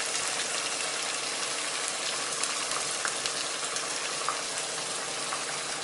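Chicken leg pieces sizzling steadily as they fry in ghee in a pan, with a few faint pops.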